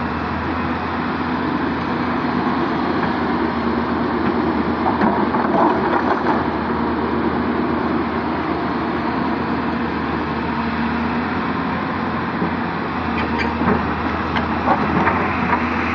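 Hyundai 220-9S crawler excavator's diesel engine running steadily while it works its boom and bucket, with a few short knocks in the middle and near the end.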